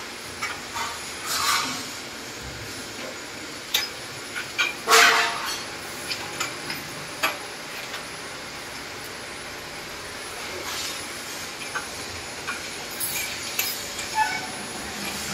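Aluminium scaffold tower stabiliser tubes and clamps clanking against the frame as they are fitted. Irregular metal knocks and clinks, the loudest about five seconds in.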